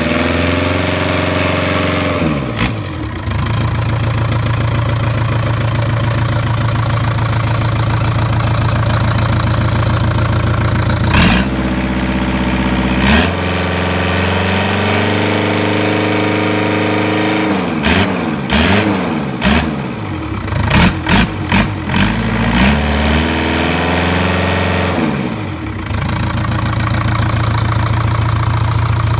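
Volvo Penta MD22L four-cylinder marine diesel running out of the boat, idling steadily with the throttle opened up and let back down once near the start and then in a run of quick revving blips past the middle.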